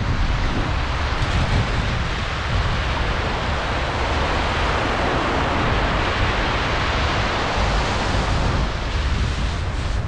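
Surf washing onto the beach, swelling loudest around the middle, with wind buffeting the microphone in a low rumble.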